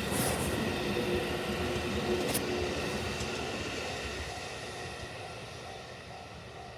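JR West 281 series and 271 series limited express electric trains passing slowly over a level crossing, their running noise fading as the train moves away. From a little past the middle, a level crossing warning bell is heard ringing in a steady repeat, about two to three dings a second.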